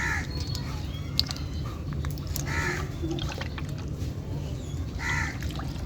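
A bird calling three times, short calls about two and a half seconds apart, over a steady low hum with a few faint clicks.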